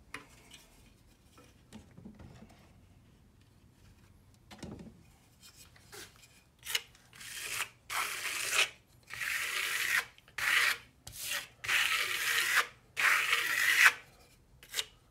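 Stainless steel trowel scraping plaster across a styrene sample board in a run of about seven strokes. The strokes start about halfway through and are each up to about a second long, with short gaps between them.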